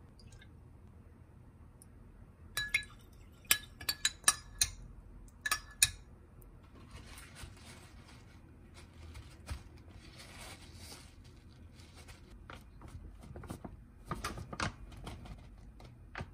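A spoon clinking several times against a glass bowl while stirring sauce, then the soft rustle of paper towel being pressed onto tofu to blot off its water, with a few more light clicks and knocks near the end.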